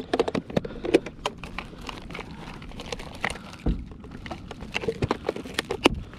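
Hands rummaging through a clear plastic tackle box, with many quick clicks and rattles of hard plastic and the crinkling of plastic tackle packets being pulled out.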